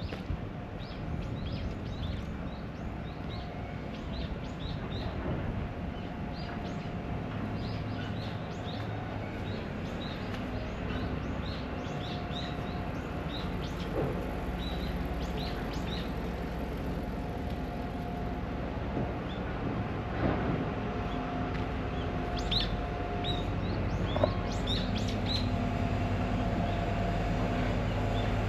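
Small birds chirping repeatedly in short high notes over a steady low hum of city traffic. A low vehicle rumble builds over the last few seconds.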